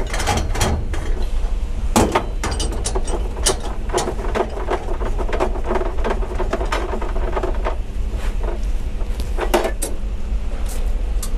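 Irregular metallic clanks and knocks as hose couplings are handled and fitted to the stainless-steel valve fittings of a tanker trailer, over a steady low rumble.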